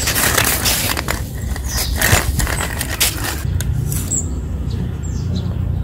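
Sand and small gravel pouring and scraping out of a tipping diecast toy dump-truck bed, a scratchy hiss with many small pebble clicks that thins out about three seconds in. A steady low rumble runs underneath.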